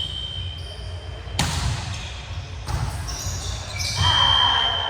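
Sounds of a basketball game: the ball bouncing and thudding on the court, with a sharp impact about a second and a half in. A referee's whistle gives a steady shrill blast near the end.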